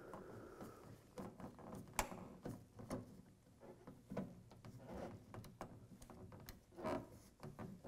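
Phillips screwdriver turning the screws that hold a plastic hood guard to a pickup's hood: faint, irregular clicks and taps of the tool and screws against the plastic shield, the sharpest about two seconds in.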